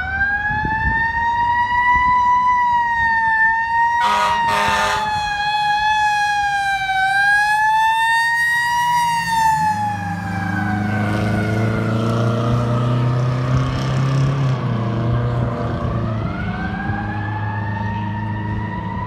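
Fire truck's Federal Signal Q mechanical siren wailing, its pitch wavering up and down, with a short air horn blast about four seconds in. About ten seconds in the siren winds slowly down while the truck's engine rumbles low, then it winds back up near the end.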